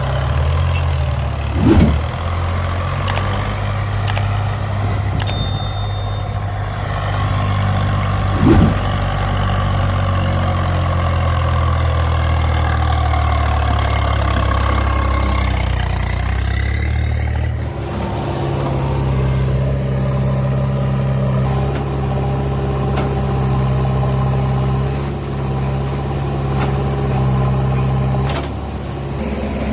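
Heavy diesel engine of a tractor or backhoe running steadily under load. There are two brief loud knocks, about 2 s and 8.5 s in, and the engine note shifts about two-thirds of the way through.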